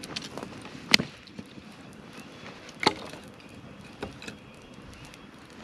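Wood campfire burning with a low crackle and a few sharp pops: the loudest about a second in, another near three seconds and a smaller one about four seconds in.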